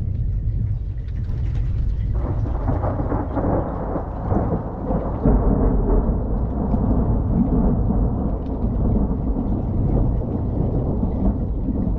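Thunder: a low rumble that swells about two seconds in into a long rolling peal.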